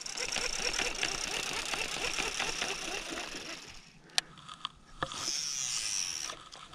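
Fishing reel spinning with a fine, fast mechanical whir for about four seconds, then again briefly near the end.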